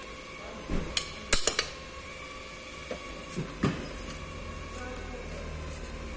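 Sharp metal clinks and a few dull knocks of a socket wrench and hand tools on a stripped Kia Rio engine block as its bolts are worked loose. The clinks bunch together about a second in, and the knocks come near the middle, over a steady low hum.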